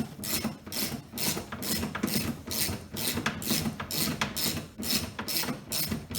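Socket ratchet clicking in quick, even strokes, about three a second, as it turns a bolt deep inside a car door.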